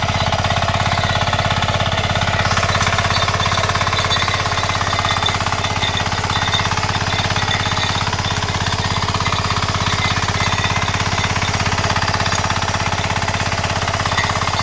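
Single-cylinder diesel engine of a 9 hp power weeder running steadily under load while its rotary tines till the soil, a fast, even chugging.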